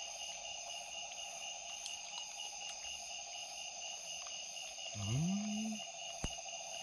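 Steady chorus of night insects, several trilling at different pitches, one of them pulsing evenly. About five seconds in, a person gives a short hum that rises in pitch and holds for under a second.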